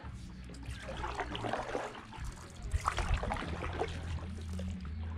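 Kayak paddle strokes: water splashing and trickling off the paddle blades in irregular bursts, with a low steady hum underneath.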